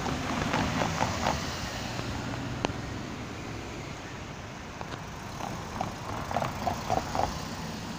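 Steady road traffic noise, with a cluster of short squeaks near the start and another about six to seven seconds in, and a single sharp click nearly three seconds in.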